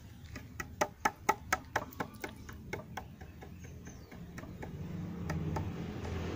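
A quick, irregular run of about a dozen sharp clicks over the first three seconds, then a low rumble that builds toward the end.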